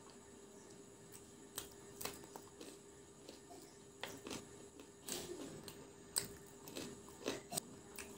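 Close-up crunching and chewing of fried chicken pakora, in irregular sharp crunches that come thicker and louder in the second half, over a faint steady hum.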